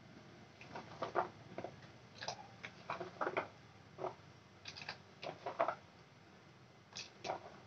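Carrot slices dropped a few at a time from a plastic bowl into a pot of boiling water: a run of irregular small plops and clicks, with two more near the end.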